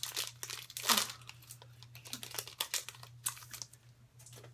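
Trading-card booster pack wrapper being torn open and crinkled by hand: a dense run of crackles in the first second or so, then sparser crinkles.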